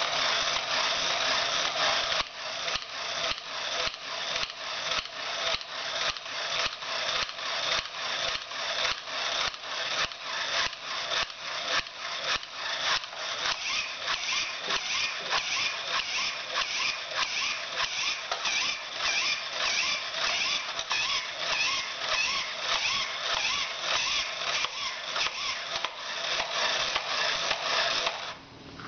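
Battery-operated tin-and-plush dancing chimp toy running: its motor and gear mechanism clatter in a steady rhythm, about two beats a second, as it dances. It cuts off suddenly near the end when switched off.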